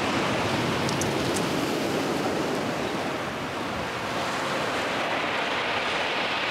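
Ocean surf breaking and washing against a rock jetty: a steady, even rush of water.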